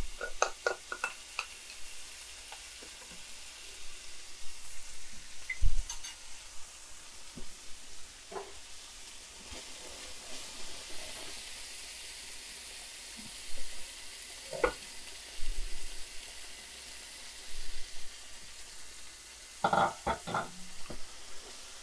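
Ground beef and onions sizzling steadily in a frying pan as they are sautéed and stirred, with the utensil now and then clicking and scraping against the pan, several times near the start and again near the end.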